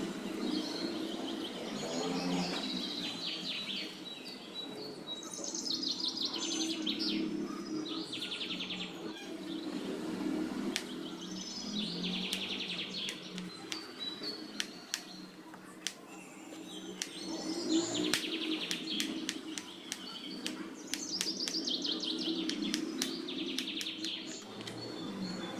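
Birds chirping in short, repeated trills throughout, over a steady low background hum. Sharp taps of a kitchen knife cutting raw potatoes against a wooden chopping board come in a scatter, thickest in the middle of the stretch.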